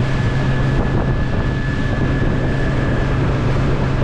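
Outboard motor running steadily at cruising speed with a low hum and a thin high whine. The rush of the wake and wind on the microphone run under it.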